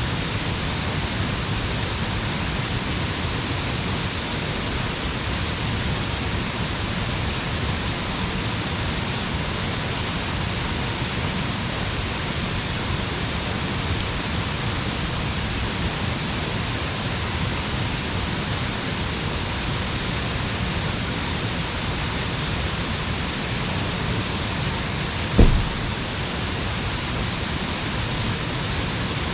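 A steady rushing noise, with one brief low thump near the end.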